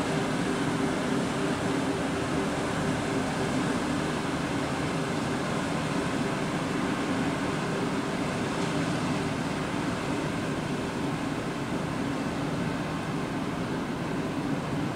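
Steady low droning hum of an inland motor cargo vessel's diesel engine running under way, pushing a loaded coupled barge, easing slightly near the end.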